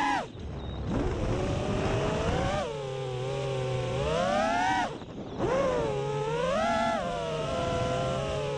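FPV racing quadcopter's brushless motors and propellers whining, the pitch rising and falling constantly with the throttle. The whine drops away sharply twice, just after the start and about five seconds in, as the throttle is cut, then comes straight back up.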